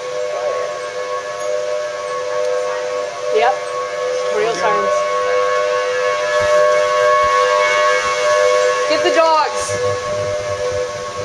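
Federal Signal Thunderbolt 1000T outdoor tornado warning sirens sounding a steady, unwavering tone, activated for an approaching severe storm.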